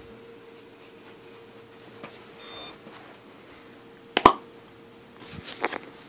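A faint steady hum with a short high electronic beep about halfway through. A sharp knock comes about four seconds in, and a brief rustle of handling follows near the end.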